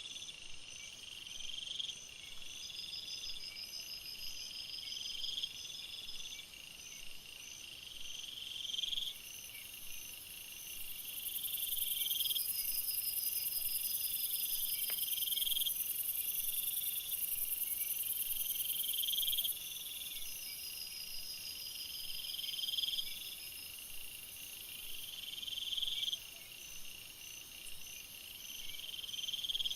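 Night-time forest insect chorus of crickets and other insects chirping and trilling. A short rising call repeats every couple of seconds over a steady pulsing chirp, and a high-pitched buzz swells louder for several seconds in the middle.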